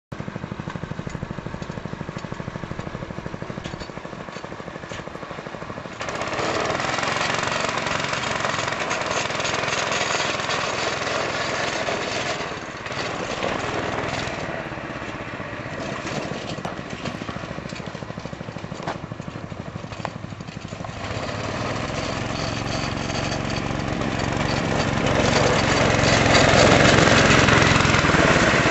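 Yerf-Dog go-kart's small engine running as it drives around, its fast pulsing note growing louder as it comes closer, about six seconds in and again near the end.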